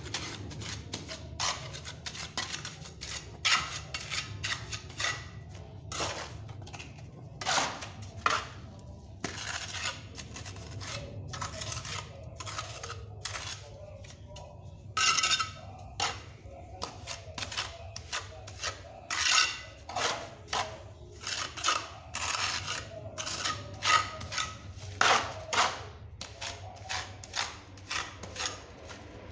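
Steel trowel scraping and pressing cement mortar onto a concrete wall in repeated strokes of uneven length, as mortar is laid over steel bars set across a crack.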